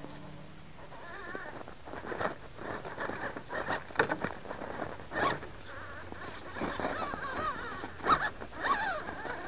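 Axial SCX10 RC rock crawler working over loose rock and dirt: irregular clicks, knocks and crunches of tyres and stones, with a wavering whine that rises and falls.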